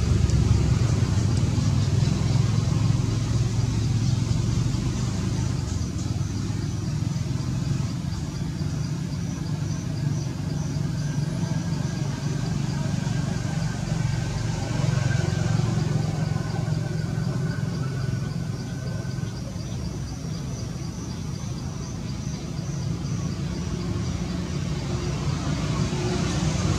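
Outdoor background noise: a steady low rumble with a faint, fast-repeating high chirping, like insects, over it.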